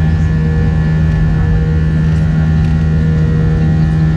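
Airbus A320's IAE V2500 engines heard from inside the cabin: a loud steady drone with a low buzzing tone and no change in pitch.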